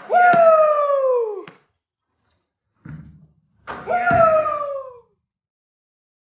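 Two long celebratory yells from teenage boys, each falling in pitch, one at the start and another about four seconds in, after made basketball trick shots. A sharp knock sounds just after the first yell begins, and a short dull thump comes about three seconds in.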